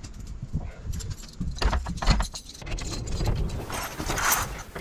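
Keys jangling and a door being opened, over irregular bumps and rustling from a handheld camera on the move.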